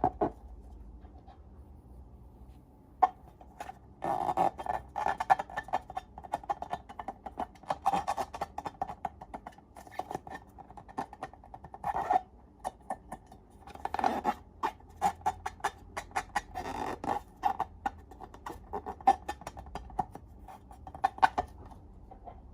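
Slime being squished and worked by hand, making rapid sticky clicks and small pops in bursts, after a short quiet stretch at the start.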